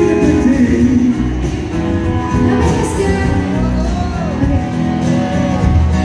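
Live country band playing: strummed acoustic guitar, electric guitars and drums, with a voice singing over them.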